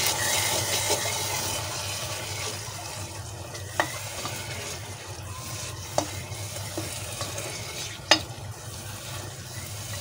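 Onion-and-spice masala sizzling in hot oil while a spoon stirs it around the pan, at the bhuna stage of frying the masala. Three sharp knocks of the spoon against the pan come about two seconds apart, in the middle of the stretch.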